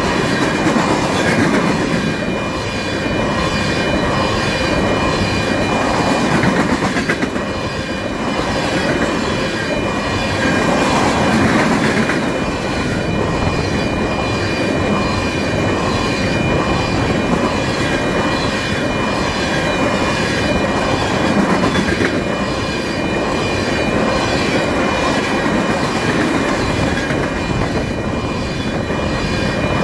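Freight train of tank cars passing at speed: a steady loud rumble of steel wheels on rail, with a rhythmic clatter as the wheels cross rail joints. A thin, steady high tone sits over it.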